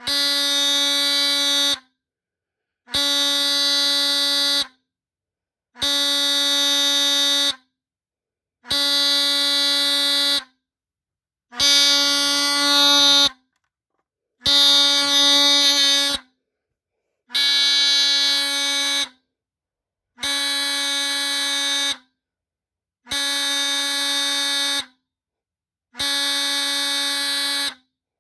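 Chloride Pyrotector 30-77ARF2 smoke detector's Star buzzer horn sounding in alarm after being set off with aerosol test spray: a buzzing tone in long, even pulses, about ten of them, each nearly two seconds long with a shorter gap between.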